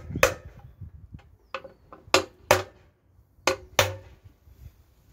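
About seven sharp metallic knocks, mostly in pairs, as a tool strikes a BMW N47 diesel engine during work on it.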